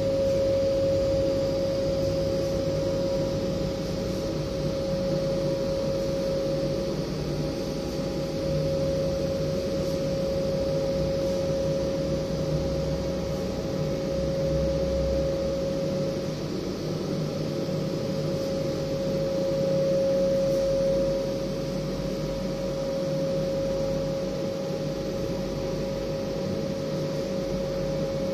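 Oral dissolving film strip-making machine running: a steady mechanical hum and rush of air with a constant whine held on one pitch.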